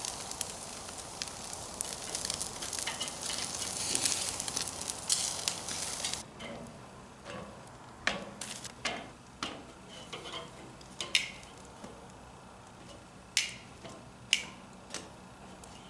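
Food sizzling and crackling over live mesquite charcoal on a kettle grill. It cuts off suddenly about six seconds in, leaving a quieter background with scattered sharp clicks of metal tongs against the grill grate as tortillas are laid out and turned.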